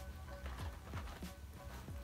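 Quiet background music with a steady beat: short held notes over a low bass line, with a soft knock about every half second.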